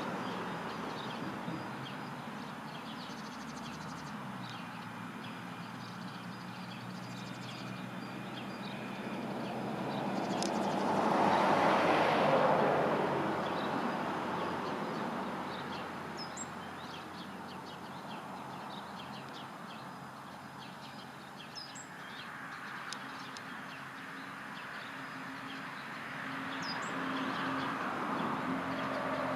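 Road traffic passing: one vehicle swells up and fades away around the middle, and another approaches near the end. Small birds chirp briefly a few times.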